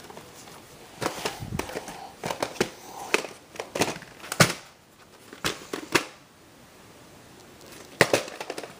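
Objects being picked up and set down on a wooden table by hand: irregular knocks and clicks, several in the first half, then a quieter stretch before another loud knock near the end.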